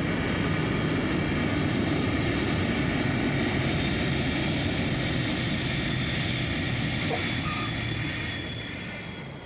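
Aircraft engines droning steadily and loudly, fading away near the end.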